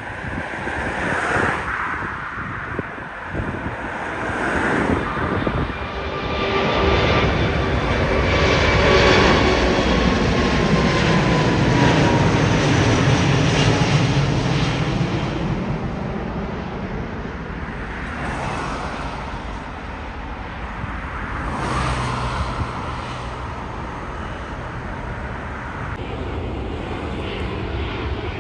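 Jet airliner passing close by, its engine noise building to a peak about a third of the way through. The engine whine falls in pitch as the aircraft goes past, then the sound eases off.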